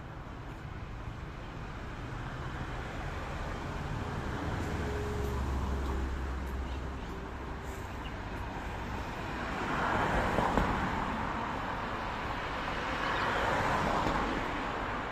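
Road traffic passing: a low engine rumble a few seconds in, then two louder swells of vehicles going by in the second half.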